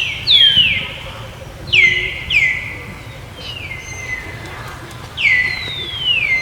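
Baby macaque giving high, thin calls that slide down in pitch and settle into a held note, about five of them, mostly in quick pairs.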